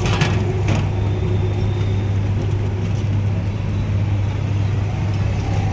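Steady low drone of street noise, with a couple of short clicks in the first second.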